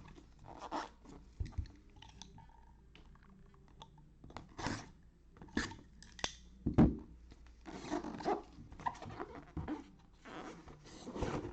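Sealed box being torn open by hand: irregular crinkling and tearing of cellophane wrap and cardboard packaging, with a sharp knock about seven seconds in.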